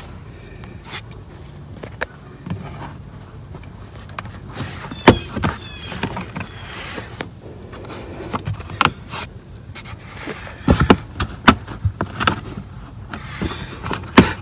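Scuffing and rubbing of a molded all-weather rubber floor mat being worked into place over the floor's retention clips, with several sharp clicks and knocks, the loudest in the second half.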